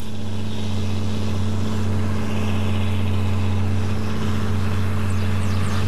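Farm tractor's diesel engine running with a steady low drone as the tractor drives across a field.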